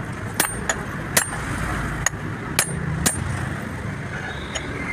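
Hand hammer striking the steel yoke and bearing cup of a truck propeller-shaft universal joint: about four sharp metallic blows with a short ringing tail, with a few lighter taps between, over a steady low background rumble.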